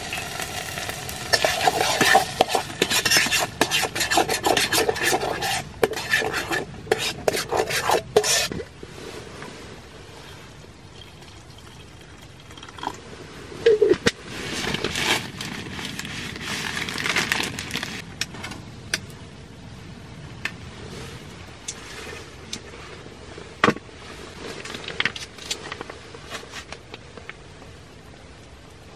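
Metal spoon stirring and scraping inside an aluminium camping pot, with quick busy clinks and scrapes for the first eight seconds or so. After that it goes quieter, with only a few single clinks against the pot over a steady low hiss.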